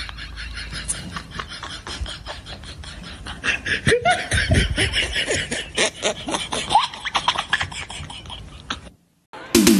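Laughter in rapid bursts, getting louder about three and a half seconds in.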